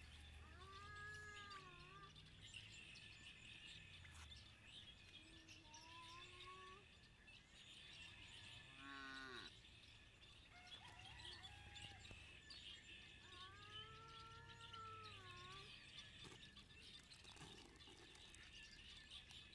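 Faint cattle mooing: several long calls, each rising and falling in pitch, over steady bird chirping.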